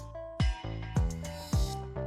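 Background music: a deep kick drum beating about twice a second under held notes.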